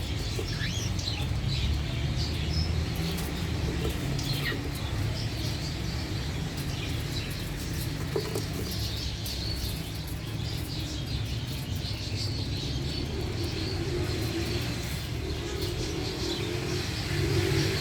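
A flock of caged Australian parrots and white cockatiels chirping and calling in many short, high notes, over a steady low rumble. A low droning sound joins in near the end.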